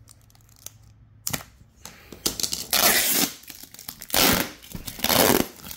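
Clear plastic wrapping and packing tape being torn open, in three loud tearing bursts after a quiet first second.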